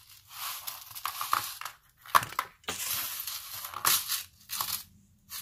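Crinkling and rustling of packaging being handled, in irregular bursts with a few sharp clicks.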